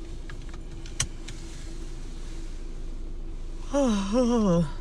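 Steady low hum of a car cabin, with a single sharp click about a second in. Near the end a person's voice makes a short, wavering sound.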